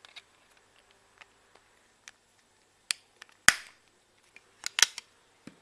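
Plastic eyeglass frames clicking and knocking as they are handled and folded: scattered sharp clicks, the loudest about three and a half seconds in, and a quick cluster near the end.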